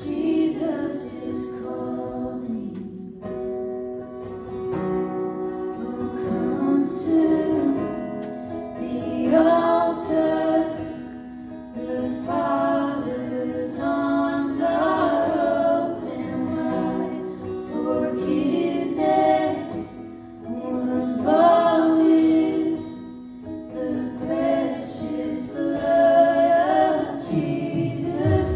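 Live church worship music: a woman sings a slow melody into a microphone over a strummed acoustic guitar.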